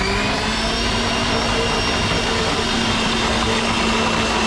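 Electric countertop blender running at a steady speed, with a loud steady whine, blending a pink watermelon-and-rose drink.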